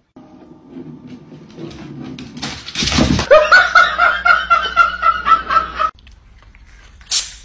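A person laughing hard in quick high-pitched bursts, about four or five a second, right after a sudden loud noise. The laughter cuts off abruptly about two seconds before the end.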